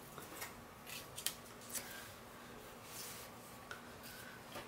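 Paper swatch cards being handled and slid across a tabletop: a scattering of faint soft clicks and rustles.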